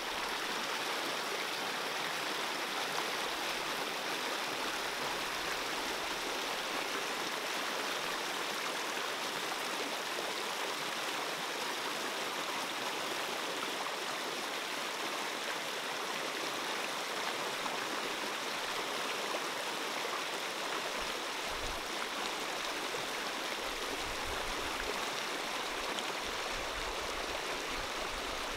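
A fast stream rushing over rocks, a steady even rush of water.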